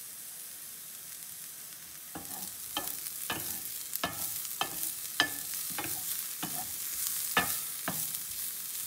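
Sliced carrots and broccoli sizzling in a fry pan, with a steady high hiss. From about two seconds in, a wooden spoon stirs them, knocking and scraping against the pan about one and a half times a second.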